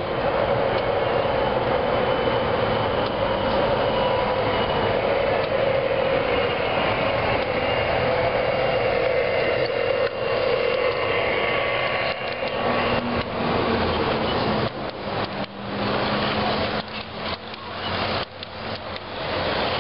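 Large-scale garden model freight train running past on a curved wooden trestle: a steady rolling rumble as the diesel locomotive approaches and passes, then quick clicking and knocking from the cars' wheels on the track in the second half.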